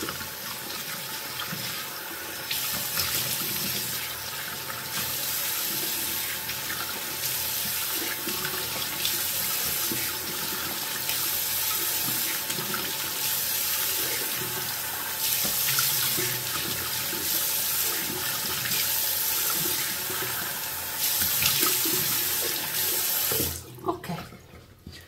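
A tap running into a sink while a face is rinsed, the water sound swelling and changing in stretches as it is splashed. The tap is shut off abruptly near the end.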